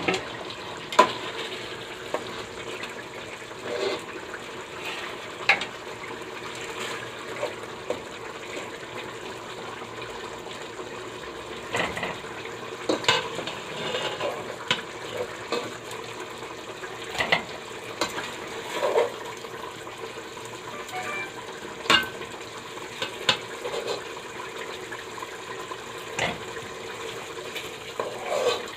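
Spoon clinking and scraping against a cooking pot while chicken pieces are lifted out of the masala gravy one by one, in irregular knocks a second or several apart over a steady low background hiss.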